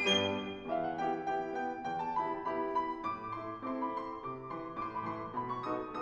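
Grand piano playing a solo passage of a polka, a bouncing melody over chords, just after two piccolos finish a bright high phrase in the first half second.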